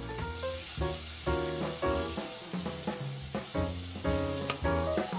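Diced onion sizzling steadily in hot oil with cumin seeds in a stainless steel pot as it is stirred, with background music playing a regular run of notes over it.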